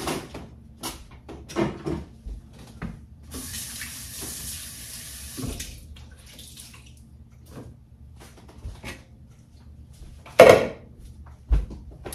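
Kitchen faucet running into the sink for about two seconds, a few seconds in, amid small clicks and knocks of kitchen handling. A loud knock comes near the end, followed by a softer thump.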